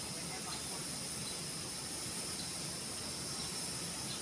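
Steady hiss with a high-pitched steady whine over it and a faint low hum underneath, dotted with a few faint short chirps.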